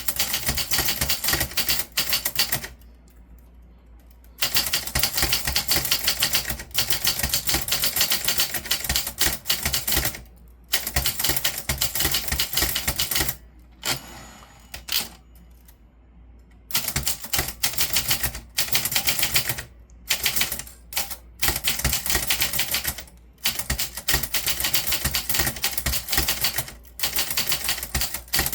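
Typewriter being typed on in fast runs of key strikes, broken by short pauses, the longest about three seconds at the middle.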